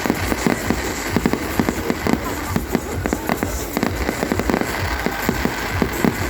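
New Year fireworks going off in a rapid, unbroken string of sharp bangs, several a second, overlapping one another.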